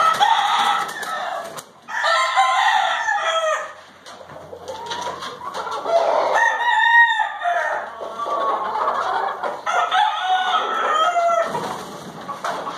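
Gamecocks crowing, about four long crows a few seconds apart.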